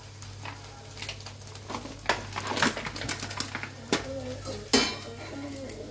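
Kitchen handling noises: scattered sharp clicks and knocks, the loudest near the end, over a steady low hum.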